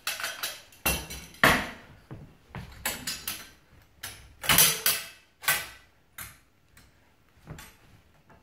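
Sharp metallic clicks and clacks of a stainless steel predator kill trap being loaded with a setting tool. The loudest clacks come about one and a half seconds in and again around five seconds in, thinning to a few fainter ticks near the end.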